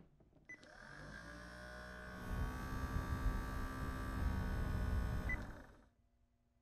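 Household robot's motor whirring as it moves, with a low rumble that strengthens partway through. A short electronic blip sounds near the start and again near the end, and the whir fades out shortly before the end.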